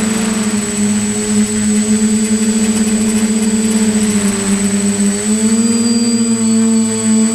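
Quadcopter's electric motors and propellers humming in flight, heard from the drone's own camera: a steady buzzing tone that sags slightly about four seconds in, then rises a little higher about five and a half seconds in.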